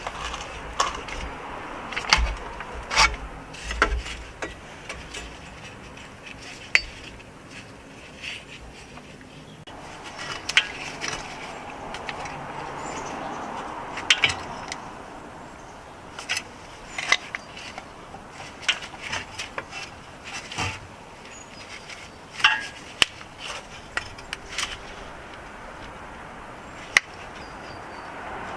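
Irregular metallic clicks, clinks and scrapes of hand tools and a handbrake cable bracket being worked loose from a car's underside, with no steady rhythm.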